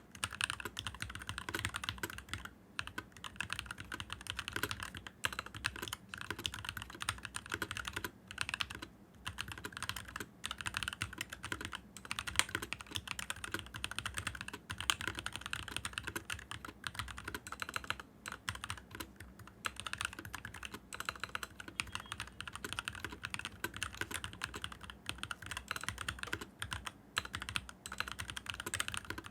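Fast, continuous typing on a stock (unmodified) NovelKeys NK65 mechanical keyboard: a dense run of key clacks, broken by a few brief pauses.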